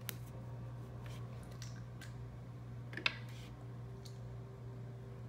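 A few faint clicks and taps of small plastic Lego BB-8 figure pieces being handled and set down on a tabletop, the sharpest about three seconds in, over a steady low hum.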